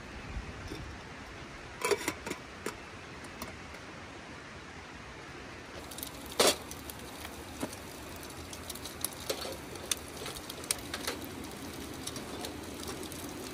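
Clinks, taps and knocks of camp cooking gear being handled: a plastic water jug and a metal kettle, then pans and utensils at a camp stove. There is one louder knock about halfway through and many small irregular clicks later on.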